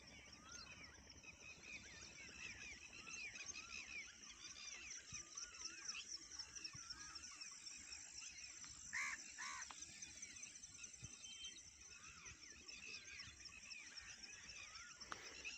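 Faint dawn chorus of many birds chirping and whistling over open farmland, with two louder calls about nine seconds in.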